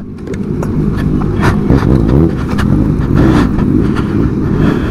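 Kawasaki ZX-25R 250 cc inline-four motorcycle engines running, with revs rising and falling briefly near the middle.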